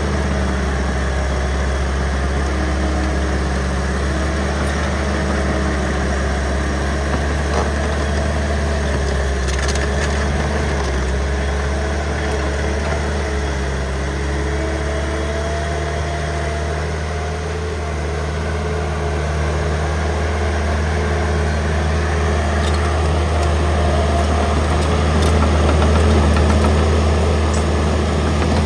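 Engine running steadily at a constant low pitch, with small shifts in tone as the load changes.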